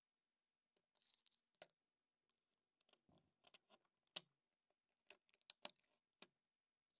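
Faint scraping and a string of small sharp clicks as a utility knife blade pries and cuts into the plastic body of a toy car, the loudest click about four seconds in.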